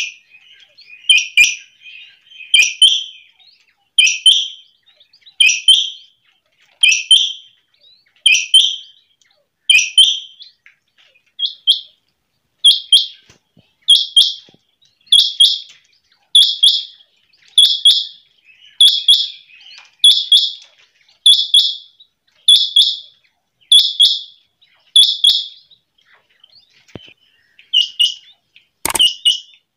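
A caged female quail calling over and over: short high calls repeated about every 1.2 to 1.5 seconds, pausing briefly near the end, where a sharp click is heard.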